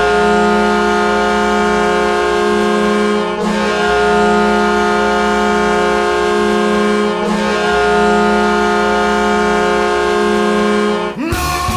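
Ice hockey arena goal horn blowing at a steady pitch in three long blasts that run into each other, with short dips about a third and two-thirds of the way through. Near the end it cuts off and a rock song with shouted vocals starts.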